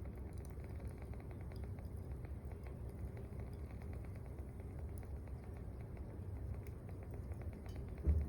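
Small wood fire burning in a secondary-combustion wood stove: a steady low rumble of flame with frequent small crackles and ticks of the burning wood. A single louder thump comes about 8 seconds in.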